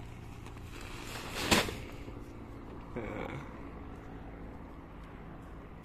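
Low, steady hum of a tractor engine running in the background. About a second and a half in there is a short, loud rush of noise, and near three seconds a brief falling sound.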